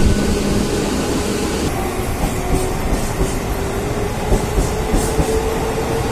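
Mumbai suburban electric train running at speed, heard from inside the coach: a steady rumble of wheels on rails with a faint motor hum, and a few clacks over rail joints in the second half.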